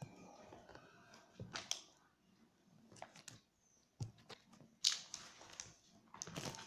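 Faint, scattered rustles and clicks of a paperback textbook's pages being handled and shifted, the loudest a little over a second and a half in and just under five seconds in.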